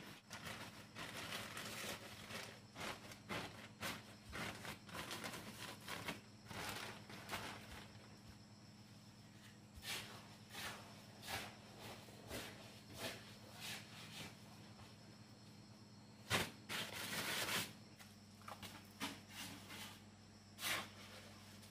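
Plastic sheeting crinkling and rustling as it is spread and tucked over fresh brickwork, followed by scattered short scrapes and knocks, with one loud knock and a burst of rustling about three quarters of the way through. A steady low hum runs underneath.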